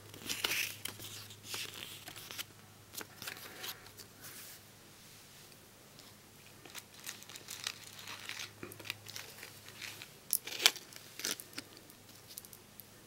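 Quiet rustling and crinkling as a small paper mini magazine and doll clothes are handled and set down on carpet, with a couple of sharper clicks near the end.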